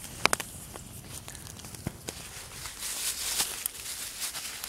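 A few sharp pops from a crackling wood fire, then a plastic bag crinkling as it is handled, from about three seconds in.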